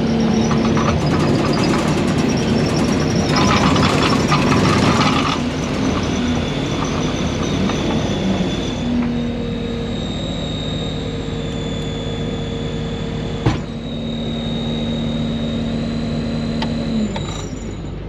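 Case TR320 skid steer's diesel engine running under throttle, heard from inside the open cab, with a steady high whine over the engine hum. It is loudest in the first few seconds, there is one sharp click about two thirds of the way through, and the engine drops back near the end.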